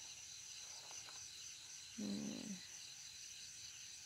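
A cat gives a single short, low meow that falls slightly in pitch, about two seconds in. Crickets chirp steadily throughout.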